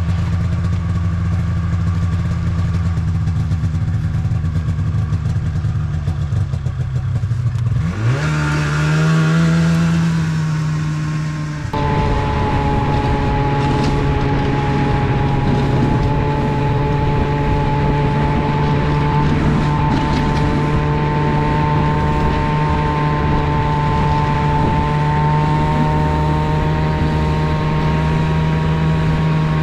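Polaris snowmobile engine idling, then revving up about eight seconds in. From about twelve seconds on, it runs steadily under way while towing a sled of gas cans, heard from the towed sled behind it.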